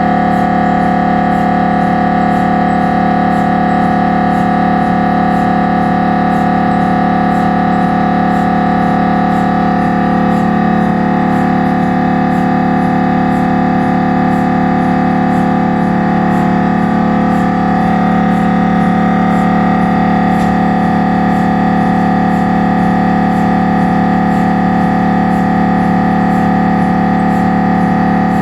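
Siemens Magnetom Avanto 1.5T MRI scanner's gradient coils sounding during a scan sequence: a loud, steady buzzing tone that holds unchanged, with a faint regular ticking.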